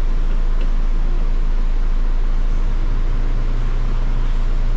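Steady low machine hum with an even hiss over it, unchanging throughout; a faint tick about half a second in.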